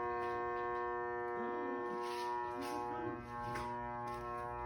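Garage door opener motor running with a steady droning whine made of many held tones. The owners suspect the motor is wearing out.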